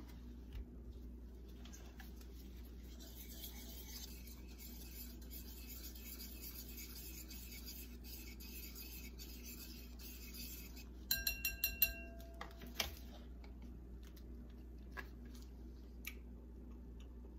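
Wire whisk beating a dressing in a bowl: a fast, steady scraping for about nine seconds, then a quick run of ringing clinks against the bowl.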